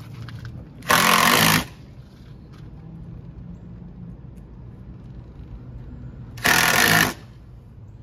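Cordless drill-driver run in two short bursts, each well under a second and about five and a half seconds apart, driving screws on the motorhome's door hinge.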